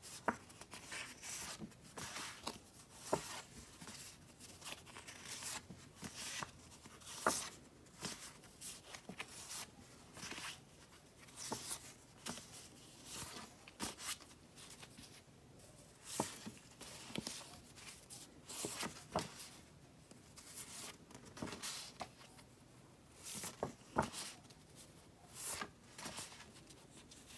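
A stack of stiff paper photo postcards being flipped through by hand, one card sliding off the next every second or two with a brief papery rustle.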